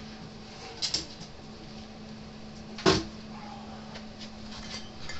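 Objects being moved and set down on a workbench: a couple of light clicks about a second in and one sharp knock about three seconds in.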